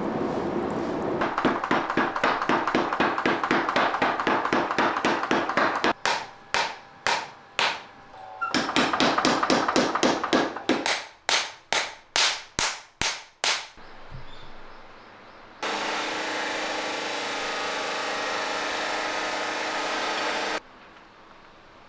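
Red-hot iron being forged on an anvil: runs of fast, evenly spaced hammer blows, about five a second, alternating with slower single blows that ring out and fade. Near the end a steady rasping noise runs for about five seconds and stops abruptly.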